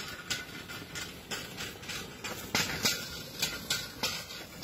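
Irregular clattering and crackling from a bullock-drawn plastic-mulch laying implement being pulled along the bed, loudest a little past halfway.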